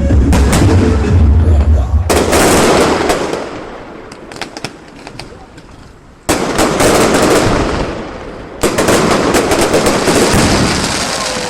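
Fireworks going off in three volleys, each starting suddenly with a sharp bang and trailing into dense crackling that fades over a few seconds; the volleys come about two, six and nine seconds in. Loud music with a heavy bass beat plays at the start.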